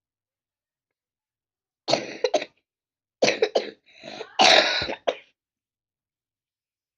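A child coughing in a short fit: about four harsh coughs after a couple of seconds of silence, the loudest near the end.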